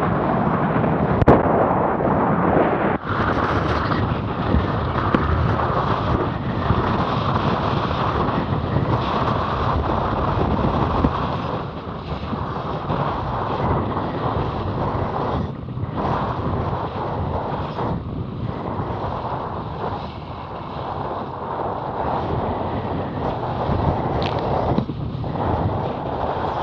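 Strong wind buffeting the microphone on a Laser Radial dinghy sailing in 25–35 knot winds, mixed with the rush and splash of choppy water and spray along the hull. Two sharp knocks come in the first three seconds.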